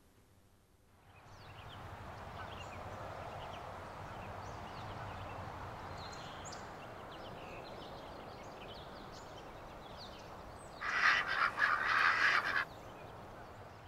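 Outdoor ambience with faint songbird chirps, then about eleven seconds in a tom turkey gobbles once: a loud, rapidly pulsing call lasting under two seconds.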